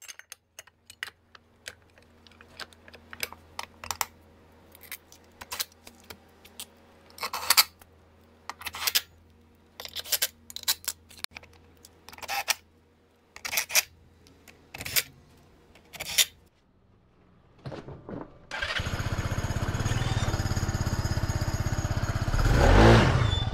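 Scattered metallic clinks and knocks of tools and parts being handled, then a motor scooter's engine starts about three-quarters of the way in and runs steadily, rising briefly near the end, started for a test run after the clutch rework.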